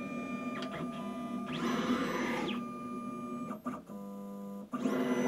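Stepper motors of a Sieg X3 CNC mill driving the X and Y axes together while homing, a machine whine of steady tones that jumps to new pitches several times as the moves change speed. It turns rougher and noisier for about a second near the two-second mark and again near the end.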